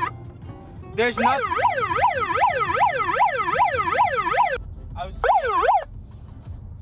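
Electronic emergency-vehicle siren in fast yelp mode, its pitch sweeping up and down about three times a second. It starts with a rising glide about a second in, cuts off abruptly three and a half seconds later, then gives one short burst near the end.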